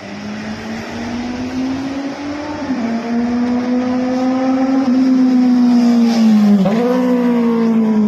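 Suzuki GSR 750 inline-four on a full aftermarket exhaust with the catalytic converter deleted, accelerating hard through the gears. The revs climb and drop back at upshifts about three and five seconds in, and the engine gets louder as it comes closer.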